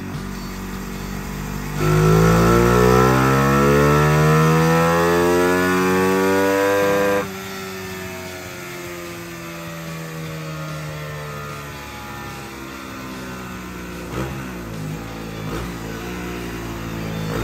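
1998 Suzuki FX125's DOHC single-cylinder engine making a full-throttle run on a chassis dyno with a larger main jet fitted. It idles, then about two seconds in the throttle opens and the revs climb steadily for about five seconds. The throttle snaps shut and the revs wind down slowly back to idle, with a few short blips near the end.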